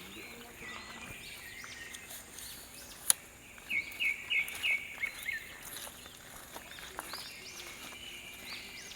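Birds calling with many short, arching chirps, and a run of about five loud, evenly repeated notes about four seconds in; a single sharp click sounds just before that run.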